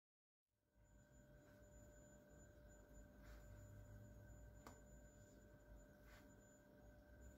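Near silence: a faint steady high tone over a low hum, with a few soft ticks about a second and a half apart.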